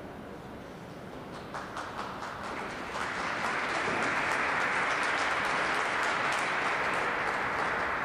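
Audience applause: a few scattered claps about a second and a half in, swelling into steady clapping from about three seconds.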